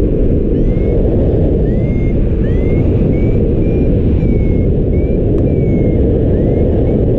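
Wind rushing over the microphone of a paraglider pilot's camera, a steady low rumble, with faint short high chirps repeating about once a second.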